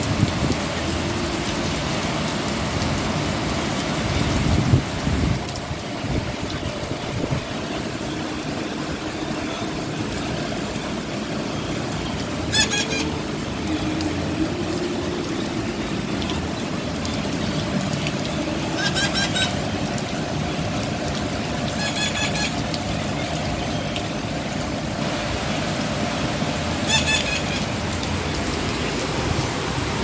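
Heavy rain pouring down steadily, with four brief high-pitched chirps in the middle and near the end.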